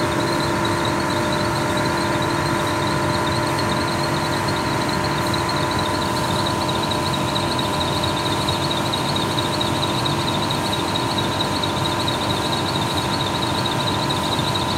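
20 HP floor-standing air conditioner running steadily, its blower moving air with the compressor on: an even rush of air with several steady whining tones over it.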